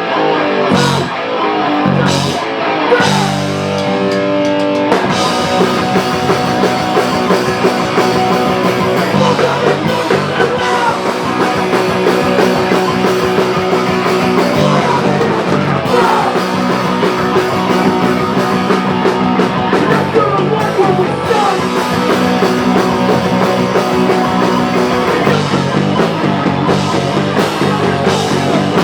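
Live rock band playing a loud cover with electric guitar, bass, drum kit and vocals. The first few seconds are stop-start hits, and about five seconds in the whole band settles into continuous playing.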